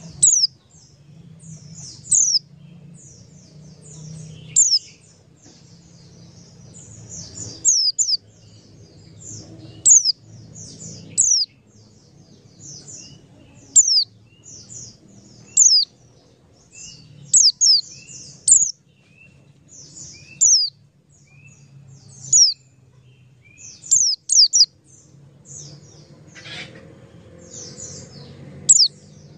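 Small birds chirping: short, sharp, high chirps that sweep downward, repeated every second or two, with fainter lower chirps between them. A low steady hum runs underneath.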